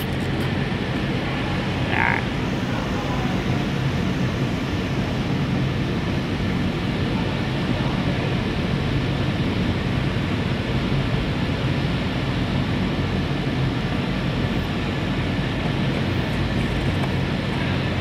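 2.2-litre diesel engine running at a steady idle, heard close up in the engine bay with the oil filler cap off.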